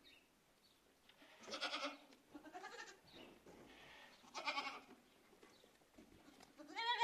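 Young goats bleating, several separate calls a second or two apart, the last one rising in pitch near the end.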